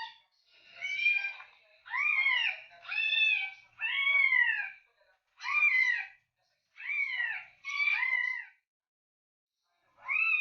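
Cat meowing over and over, about one meow a second, each one rising and then falling in pitch, with a pause of over a second before a last meow near the end.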